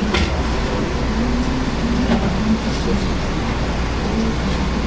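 Steady low hum and rumble of background machinery, with a couple of faint taps of a slicing knife against the cutting board.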